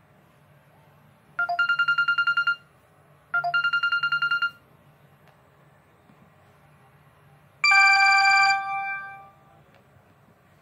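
Samsung ringtone played through a ZTE Z222 phone's speaker: two short bursts of a fast electronic trill, like a phone ringing, then a single electronic chime about seven seconds in that rings on and fades.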